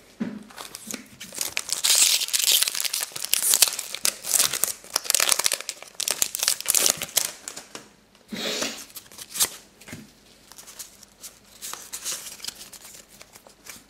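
A foil Pokémon Dragons Exalted booster pack being torn open and crinkled in the hands, with dense crackling for the first seven seconds or so and another sharp crinkle about eight seconds in. After that come quieter rustles as the cards are handled.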